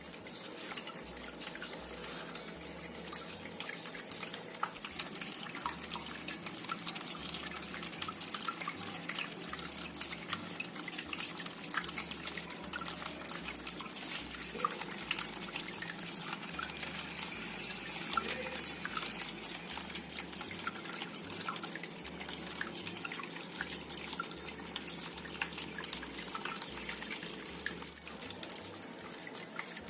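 Water from a small homemade indoor waterfall fountain trickling and splashing steadily, with many small drips.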